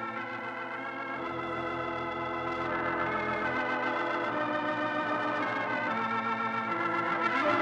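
Organ playing the program's closing theme in held, sustained chords that change every few seconds, growing gradually louder toward the end.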